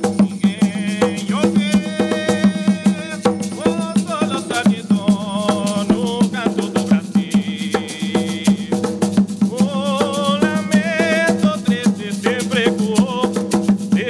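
Umbanda ritual song: voices singing a sung prayer with vibrato over a steady rhythm of drums and shaken rattles.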